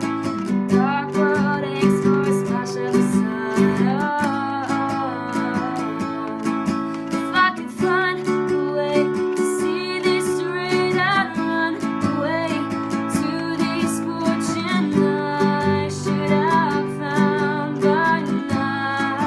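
Acoustic guitar strumming chords, with a woman singing a melody over it.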